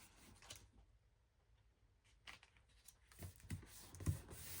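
Near silence, then from about two seconds in a scatter of faint light taps and rustles of paper being handled.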